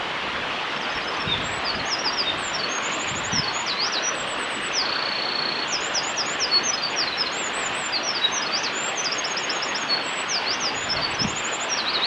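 Eurasian wren singing a long, fast song of high trills and rattles with one held whistle about five seconds in. It sings over a steady rush of stream water.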